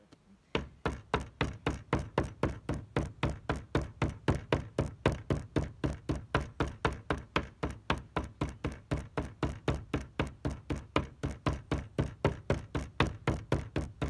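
Rubber mallet pounding steadily on paper laid over flowers on a wooden table, about four blows a second, starting about half a second in. The blows crush the petals so their colour transfers onto the paper.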